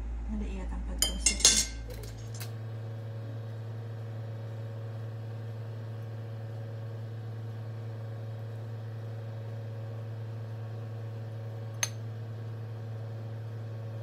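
Metal skewers clicking against a ceramic bowl and plate, a few quick clinks about a second in and one more near the end, over a steady low hum.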